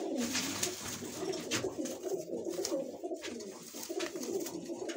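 Domestic pigeons cooing continuously in a loft, a layered murmur of many overlapping coos, with a few short clicks mixed in.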